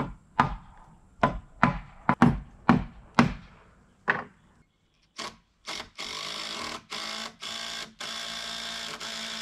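About nine sharp hammer blows on wooden railing timber over the first four seconds. Then a cordless drill starts in short bursts and runs almost steadily from about six seconds in, driving screws to fix a freshly glued joint.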